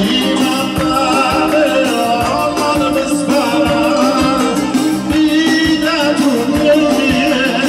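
A man singing live into a handheld microphone with wavering, held notes, backed by a small band with acoustic guitar and keyboard, amplified through a PA.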